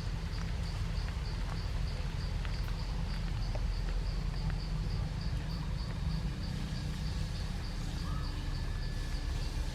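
An insect chirping in an even rhythm, about three high chirps a second, over a steady low rumble.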